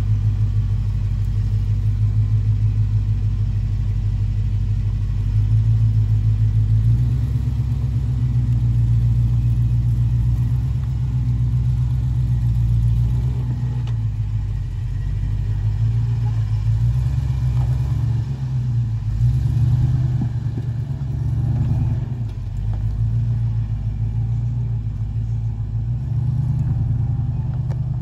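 1978 Ford Bronco's V8 engine running slowly under load as the truck crawls up and over a rock ledge, with a low, steady rumble. It picks up a few seconds in, then rises and falls with the throttle.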